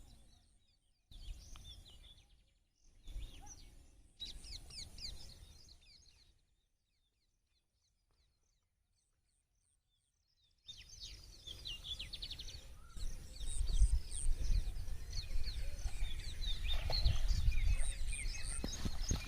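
Birds chirping in quick, repeated short calls over a low rumbling background noise. The sound starts and stops abruptly several times, drops out completely for about four seconds in the middle, then returns louder.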